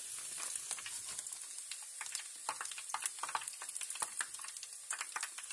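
Battered oysters frying in hot oil in a pan: a steady high sizzle with many sharp popping crackles.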